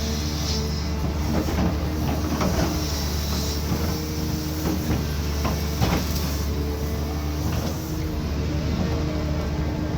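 Cat 320D2 excavator's diesel engine running steadily under work, with scattered sharp knocks and cracks on top, the loudest about six seconds in.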